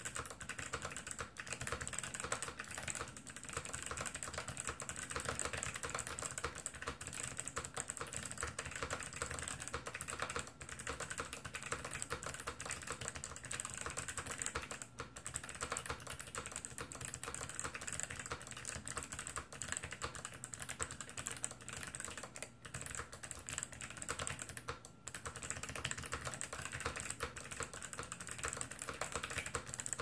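Fast, continuous typing on a mechanical keyboard with clicky switches: a dense run of sharp key clicks with a few short pauses.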